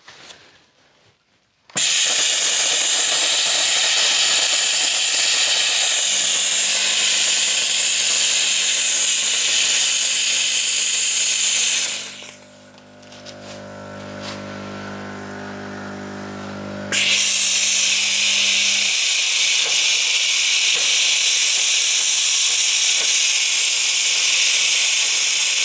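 A 4-bar handheld steam cleaner jets steam onto a soot-stained stone wall with a loud, steady hiss. The hiss stops for about five seconds around the middle, while a low hum carries on, then starts again until just before the end.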